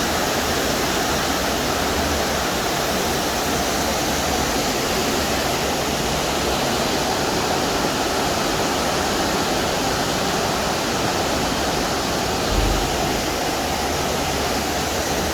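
Fast-flowing floodwater rushing steadily, with a brief low bump about twelve and a half seconds in.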